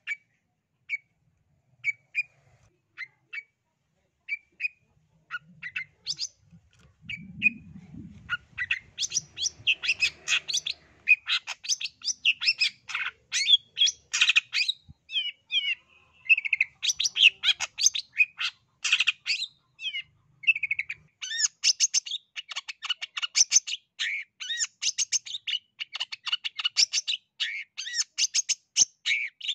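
Long-tailed shrike (cendet) singing: a few scattered single chirps at first, then from about eight seconds in a fast, dense run of sharp, harsh chattering notes.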